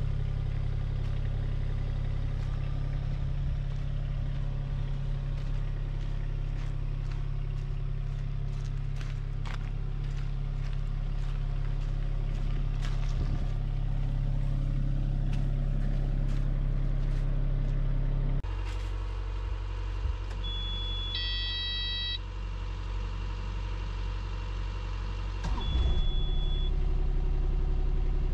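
Kubota U27-4 mini excavator's diesel engine running steadily. Later, from the cab, a few short electronic beeps from the controls, and the engine gets louder near the end.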